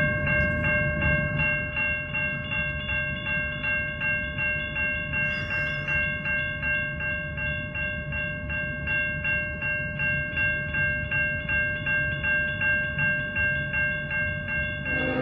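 Railroad grade-crossing warning bell dinging steadily and evenly over a low rumble, as the crossing is activated for an approaching train. Right at the end, a CN freight locomotive's horn starts to blow.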